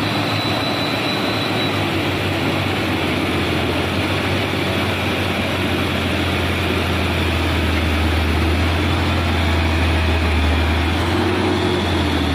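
Heavy diesel engines of a loaded Hino FM 260 JD truck and the machine towing it, labouring as the truck is dragged by cable through soft, slippery mud. The deep engine drone grows louder from about seven seconds in and eases near the end.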